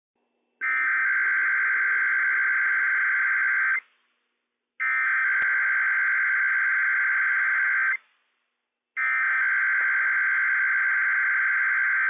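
NOAA Weather Radio EAS SAME header from station WWF56: three bursts of rapid digital data tones, each about three seconds long with about a second's gap between them, that open a Required Weekly Test alert.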